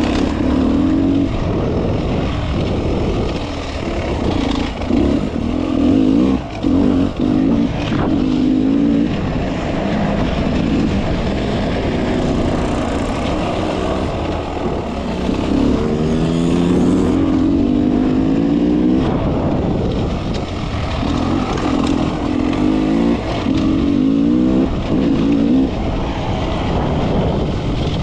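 Beta enduro motorcycle engine being ridden hard, its pitch climbing and dropping again and again as the throttle is opened and closed, with a few sharp knocks along the way.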